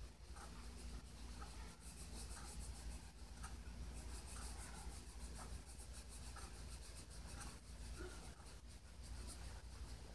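Felt-tip marker rubbed over paper in many quick, irregular strokes, colouring in a drawing; faint.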